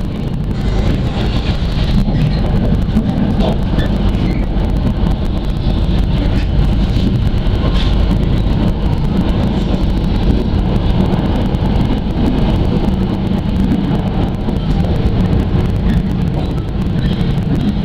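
Steady rumble and rail noise of a moving passenger train, heard from inside the carriage.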